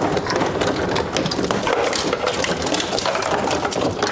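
Continuous rapid clicking and rattling of tool work on the car's dashboard fittings.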